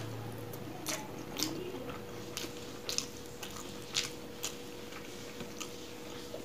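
Close-up chewing of a mouthful of rice and curry, with sharp wet mouth clicks and smacks every half second or so. There is also a soft squish of fingers mixing rice on a plate.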